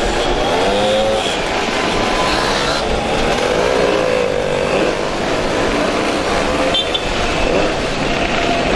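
Several mopeds and small motorcycles pulling away one after another. Their engines rise and fall in pitch as each passes close by.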